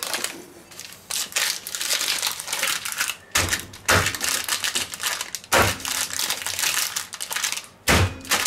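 Foil and paper chocolate-bar wrappers crinkling and rustling as they are torn open and handled, with a few sharp knocks along the way.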